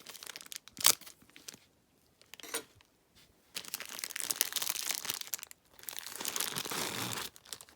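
Plastic packaging being handled and opened: a sharp click about a second in, then two long stretches of crinkling and tearing.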